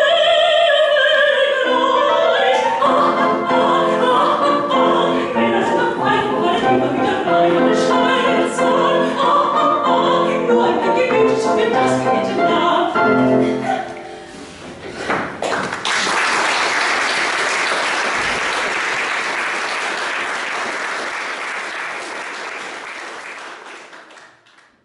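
Operetta singing with piano accompaniment, ending about fourteen seconds in. After a short pause, the audience applauds, and the applause fades out near the end.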